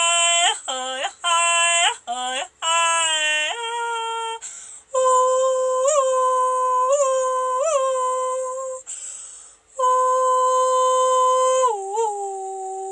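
A woman singing wordless vocables unaccompanied: a run of short syllables, then long held notes with three quick upward flicks in pitch, a breath, and another long note that drops to a lower held tone near the end.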